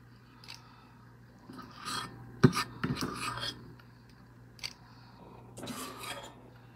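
Metal ice cream scoop scraping batter from a mixing bowl and dropping it into a metal muffin tin: short scrapes and rubs in two spells, with one sharp knock about two and a half seconds in.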